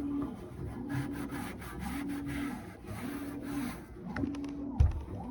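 Furnace blower parts being scrubbed by hand in steady back-and-forth strokes, about one a second, each stroke with a rubbing squeak that rises and falls. A single sharp knock comes near the end.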